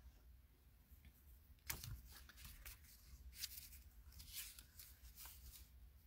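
Cardstock and paper handled and shifted on a table: faint, scattered rustles and light taps, the loudest a little under two seconds in.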